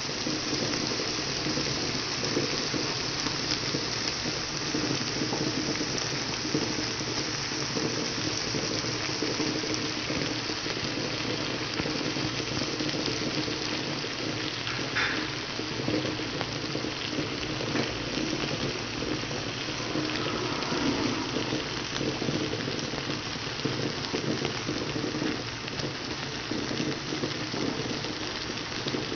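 Chopped offal in tomato sauce (bopis) bubbling and sizzling in a frying pan, a steady hiss as the sauce is cooked down until dry.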